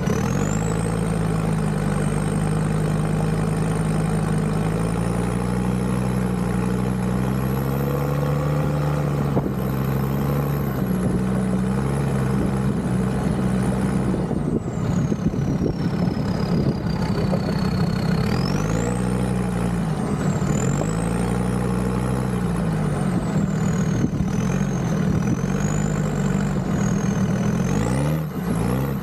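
Land Rover Discovery 2 Td5 diesel engine running as the vehicle drives along, its note rising and falling with the revs, with a high whine gliding up and down over it.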